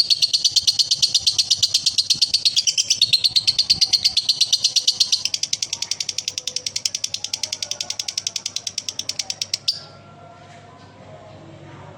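Male lovebird giving a long ngekek, the rapid, high-pitched chattering trill that keepers prize. It drops somewhat in loudness about halfway through and cuts off abruptly near the end.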